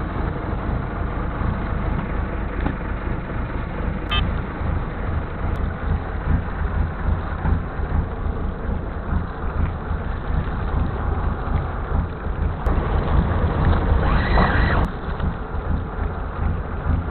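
Steady low rumble aboard a small fishing boat at sea, with a brief rise in hiss about fourteen seconds in.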